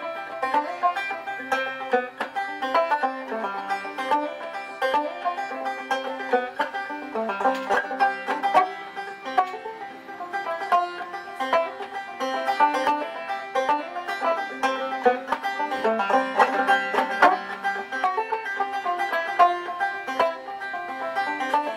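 A five-string banjo played solo: a steady, quick run of plucked notes carrying a tune.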